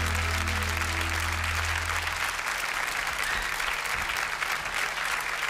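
Audience applauding as the band's last held low chord dies away about two seconds in.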